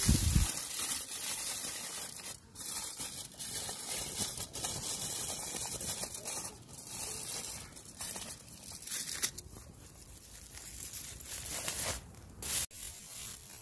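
Aluminium foil crinkling and crackling in irregular spurts as it is folded and crimped shut around a food parcel.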